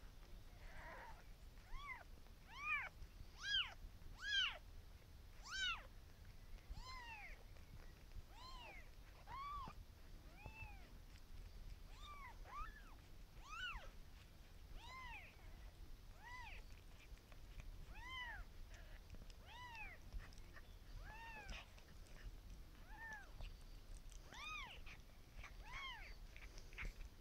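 Newborn kitten mewing: a string of short, high, rising-and-falling cries about once a second, the loudest few around three to four seconds in.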